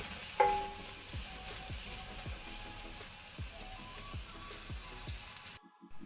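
Sliced onions sizzling in hot oil in a frying pan as they sauté, stirred with a spoon. There is a ringing clink against the pan about half a second in, and the sound drops out briefly near the end.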